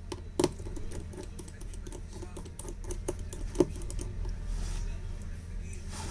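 Small irregular clicks and taps of a hand screwdriver working a phone's tiny back-cover screws, with two sharper clicks about half a second and three and a half seconds in, over a steady low hum.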